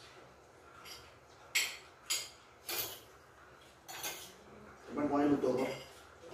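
Spoons and forks clinking against ceramic plates and bowls as people eat: about four short, sharp clinks spread over a couple of seconds. A voice speaks briefly near the end, louder than the clinks.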